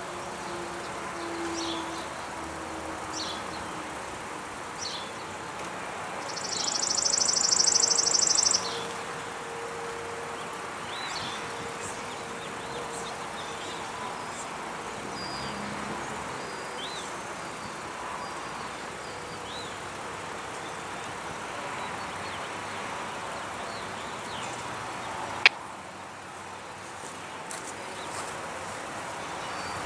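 Outdoor ambience of scattered bird chirps over a steady hum of distant traffic. A faint low tone falls in pitch over the first few seconds. A loud buzzy high trill runs from about six to eight and a half seconds in, and a single sharp click comes about 25 seconds in.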